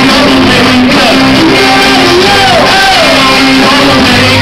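Live rock band playing loud and close: electric guitars, bass and drums, with a melody line that slides up and down again and again.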